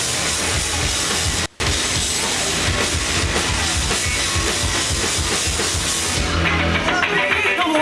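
Live rock band playing loud: electric guitars, bass guitar and a drum kit pounding through an instrumental passage. The sound cuts out for a split second about one and a half seconds in. Near the end the cymbal wash thins out.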